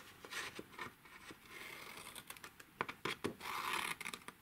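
Patterned designer paper being handled and moved over a craft mat: faint rustling and sliding of the sheet, with a few light ticks near the middle.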